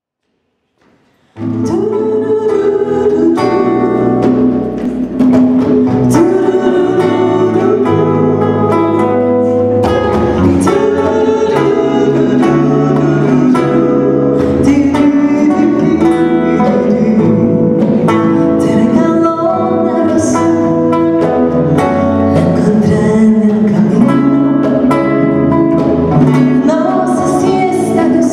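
Small live band playing a bachata: acoustic guitar, bass guitar and congas, with a woman singing. The music comes in suddenly about a second and a half in.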